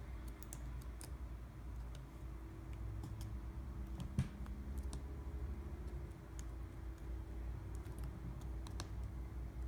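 Scattered small clicks and taps of tools and parts being handled on an opened iPhone 6, one sharper click about four seconds in, over a low steady hum.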